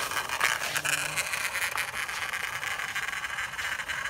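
Blue plastic toy truck dragged over packed dirt on a string, its wheels and body giving a steady, grainy rattling scrape.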